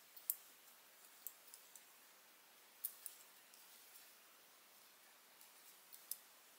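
Faint small clicks of a metal crochet hook and fingers working yarn, scattered every second or so and sometimes in quick pairs, over near silence.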